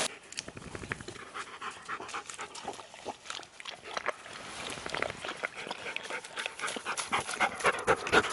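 Alaskan malamutes panting, getting louder toward the end.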